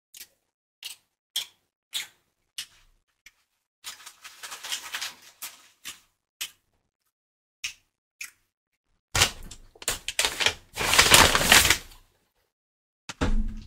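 Close-miked eating: wet mouth clicks and smacks while chewing chicken and rice, coming about every half second at first, with a soft crackly patch around four to five seconds in. About nine seconds in comes a louder, noisier stretch of around three seconds, then a short burst near the end.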